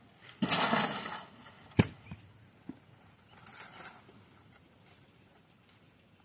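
A rustling rush lasting under a second, then one sharp knock, followed by two or three fainter knocks and a brief softer rustle.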